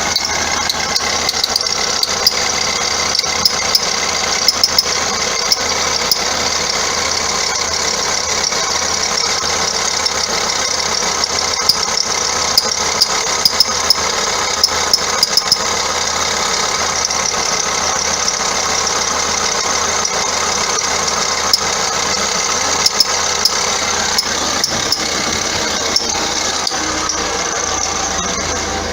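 Vauxhall Astra diesel engine running, heard from underneath, with the auxiliary drive belt squeaking and a constant stream of quick clicks. The noise comes from the failed alternator pulley wandering up and down the alternator shaft, which makes the belt chafe.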